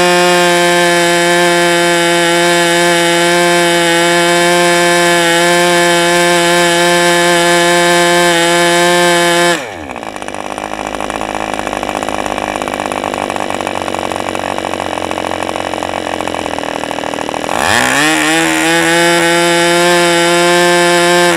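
Model two-stroke glow engine turning a propeller at full throttle, a steady high-pitched buzz at about 10,000 rpm on a genuine OS #8 glow plug. About ten seconds in its speed drops sharply to a low idle, and some eight seconds later it climbs back up to full speed.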